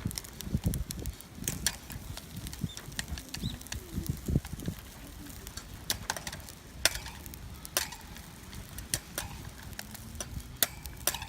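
Small wood fire crackling, with scattered sharp pops every second or so and a few dull low thuds in the first half.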